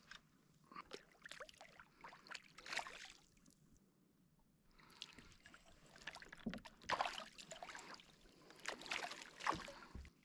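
Water splashing and dripping in irregular spurts as hooked fish thrash at the surface beside a kayak and are scooped up in a landing net, with sharp clicks and knocks among the splashes.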